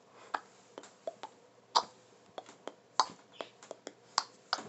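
A string of sharp clicks and taps, about a dozen at irregular intervals, the loudest a little under two seconds in, at three seconds and just after four seconds.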